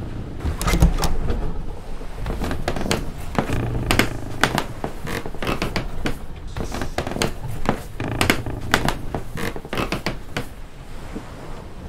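Ship ambience below deck: irregular clusters of creaks and knocks from a wooden ship's timbers over a steady low rumble.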